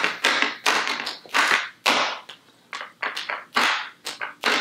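Plastic snack packaging being handled: a quick, irregular run of sharp crinkles and taps.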